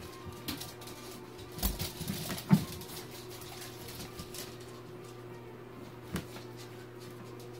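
Jack Russell terrier digging and burrowing under a fleece blanket in a tub: scattered rustling and scratching with a few knocks, the loudest about two and a half seconds in.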